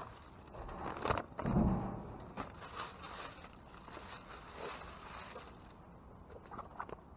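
Rummaging through a dumpster: bags and packaging rustling and scraping in irregular bursts, with a dull heavy thump about a second and a half in.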